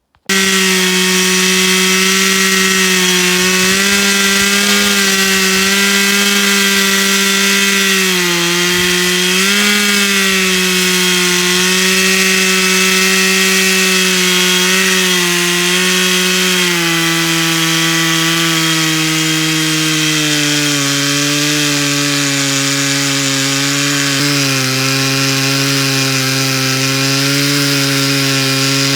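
Two-stroke chainsaw running hard at high revs, ripping lengthwise along a fir log in a homemade guide-rail milling jig. Its engine note dips briefly about eight seconds in and settles lower through the second half of the cut as the saw works under load.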